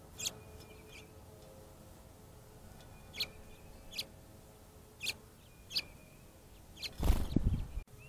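Short, sharp chip calls of small songbirds, about six spread over several seconds. Near the end comes a loud, rough burst of noise lasting under a second.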